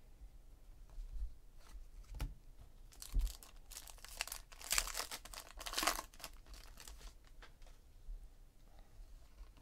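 Foil wrapper of a 2017 Panini Contenders Draft Picks football card pack being torn open and crinkled by hand: a crackling rip that starts about three seconds in and lasts about three seconds, with a few light clicks of card handling before it.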